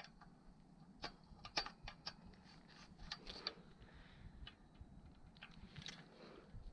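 Faint, irregular clicks and light taps of small hard objects being handled, with the sharpest knocks about a second and a half in.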